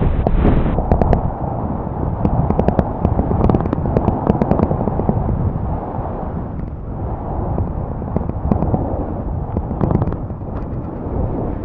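Snowboard running down a groomed piste: a continuous scraping rush of the board over the snow, broken by many sharp crackles and clatters, with wind on the microphone.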